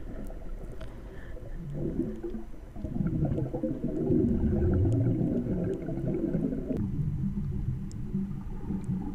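Muffled underwater rumble and gurgling of water moving around a GoPro held just below the surface by a snorkeler, with a few faint clicks. It grows louder about three seconds in and thins out abruptly near the end.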